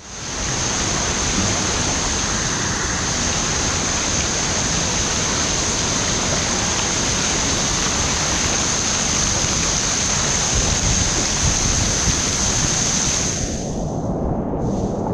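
River water rushing and churning around a kayak in a fast-flowing gorge, a steady dense hiss of current and whitewater. Near the end the upper hiss drops away for a moment and the rush turns duller.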